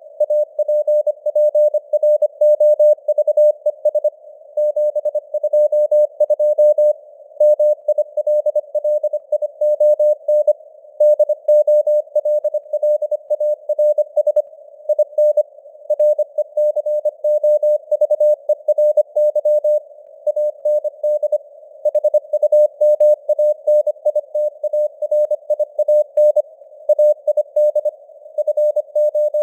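Morse code sent at 25 words per minute: a single steady mid-pitched tone keyed on and off in quick dots and dashes, over a narrow band of hiss from simulated radio noise.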